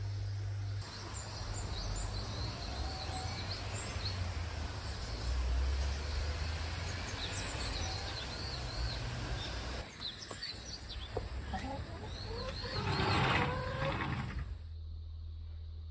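Small birds chirping repeatedly over a steady rushing noise, with a louder, busier stretch near the end before the noise cuts off suddenly.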